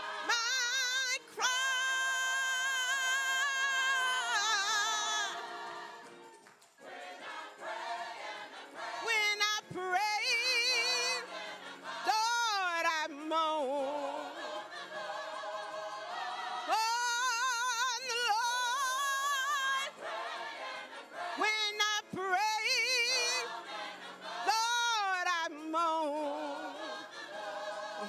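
Gospel choir singing, with a solo voice carrying long held notes and sliding melismatic runs with strong vibrato over the choir. There is a brief lull about six seconds in.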